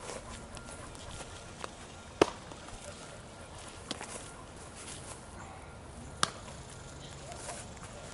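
Sharp smacks of a baseball into a leather fielding glove during a game of catch: the loudest about two seconds in and another about six seconds in, with a few fainter ticks between.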